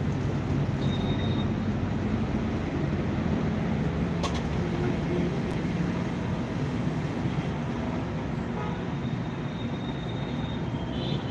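Steady low background rumble with no speech, with a single faint click about four seconds in and a few faint high tones.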